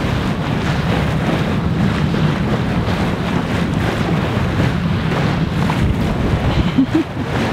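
Wind buffeting the microphone in a steady low rumble, over the rush of water along the hull of a sailing yacht under sail.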